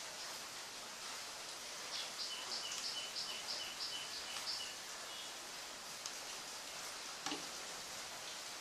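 Steady hiss, with a rapid series of about ten short, high chirps from an animal, roughly four a second, from about two seconds in. A single click near the end as the circuit board is picked up.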